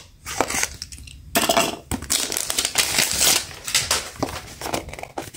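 Crinkling of a cellophane-wrapped blind box and clicking and clattering of a hard plastic cube capsule, handled as it is unwrapped and worked at to open. The sound starts about a second in and runs on as a busy rustle.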